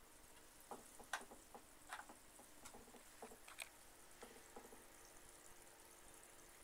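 Faint aquarium water noise: air bubbles rising and breaking at the surface, a soft steady fizz with a scatter of small ticks and pops in the first few seconds.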